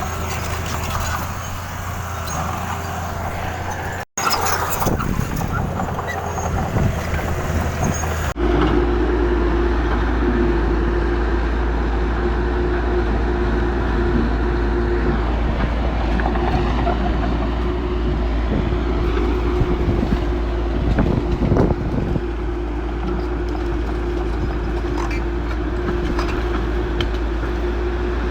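Diesel engines of heavy earthmoving machinery running steadily, switching abruptly to a different engine sound about four seconds in and again about eight seconds in, then holding a steady drone with a constant mid-pitched tone.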